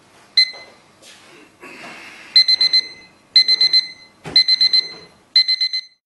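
Digital kitchen timer giving one short beep, then its countdown alarm going off: bursts of four quick high beeps, about one burst a second, four bursts in all. Handling rustle and a knock from the hands holding it come just before the third burst.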